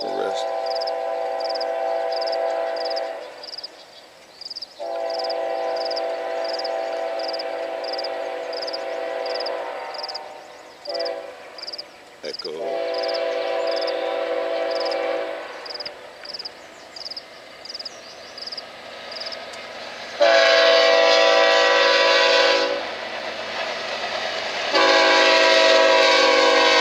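A BNSF GE diesel locomotive's multi-note air horn sounding the grade-crossing signal of two long blasts, a short one and a long one, the standard warning for a road crossing ahead. Two more long, louder blasts follow as the train draws closer.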